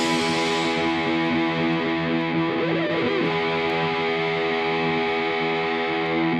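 Background music: a distorted electric guitar chord held and ringing steadily.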